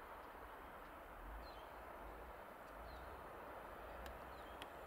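A small bird repeating a short, high chirp that falls in pitch, every second or so, over a faint steady hiss and low rumble. Two faint ticks near the end.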